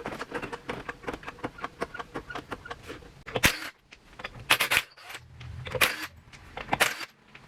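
Garage work on a car being jacked up and its wheel taken off: fast light clicking, then a series of loud metallic clanks about a second apart.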